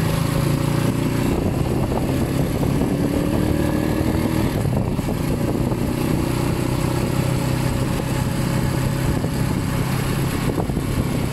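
Motorcycle engine running at a steady cruise, with rushing wind noise on the microphone.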